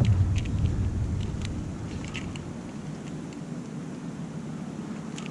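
Wind rumbling on the microphone, fading over the first couple of seconds, with a few light scattered clicks and taps.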